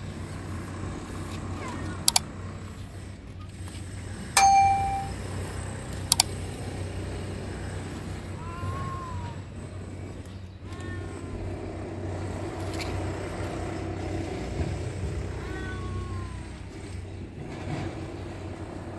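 Steady low hum of distant street traffic. About four seconds in there is a sharp metallic ding that rings out for under a second, with a couple of short clicks around it. Later come a few short rising-and-falling high calls.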